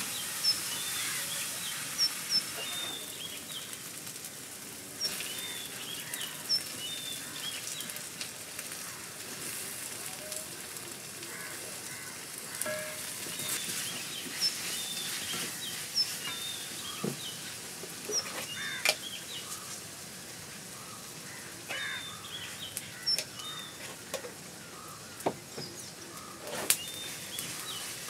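Wooden spatula stirring food in a cast-iron kadai, scraping with now and then a sharp knock against the pan, over a low sizzle. Birds chirp repeatedly in the background.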